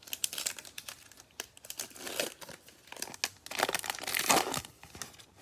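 Foil wrapper of a basketball trading-card pack being torn open and crinkled by hand, a run of crackling and tearing that is loudest about four seconds in.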